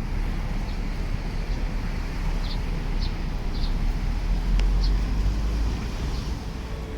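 Harbourside ambience in wind and rain: a steady low rumble with a hiss over it, and a few faint short chirps.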